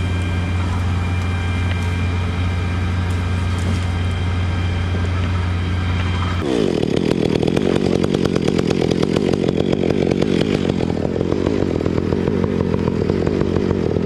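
Stihl chainsaw idling steadily, then throttled up about six seconds in and run at full speed through a thick conifer trunk, the pitch fluttering under load as it makes the cut that frees a crane-held top section.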